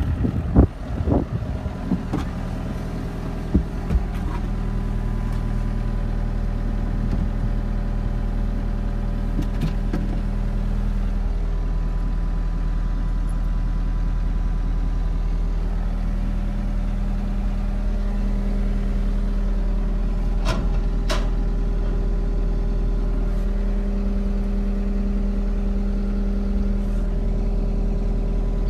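John Deere 333E skid steer's 100 hp turbo diesel engine running steadily at idle, with a few knocks and clatter in the first few seconds and a couple of sharp clicks later on.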